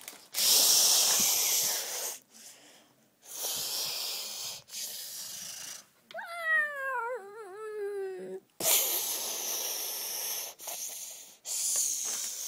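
A child's mouth sound effects: breathy hissing, blowing noises in several spells, and in the middle a wavering voiced whine about two seconds long that slides down in pitch.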